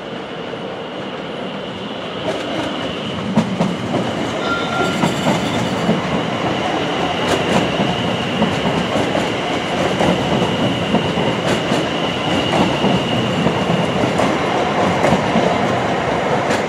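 Greater Anglia Class 720 Aventra electric multiple unit running past at close range, its wheels clicking over rail joints and points. A steady high whine carries over the rumble, which grows louder about two seconds in as the train comes alongside.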